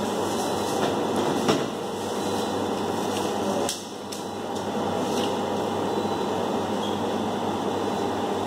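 Steady background hum with a few light clicks and knocks, and a brief dip in level about four seconds in.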